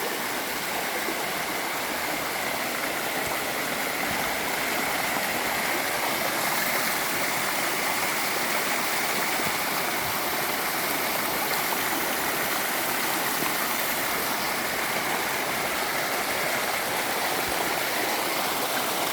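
Running water of a stream rushing steadily over rocks, a continuous even roar with no breaks.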